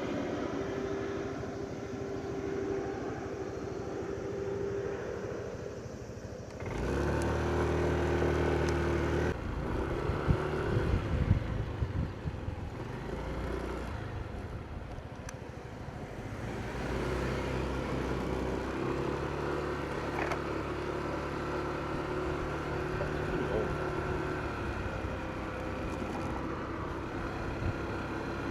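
Motor vehicle engines running steadily, their pitch shifting abruptly a couple of times, with a few sharp knocks about ten to twelve seconds in.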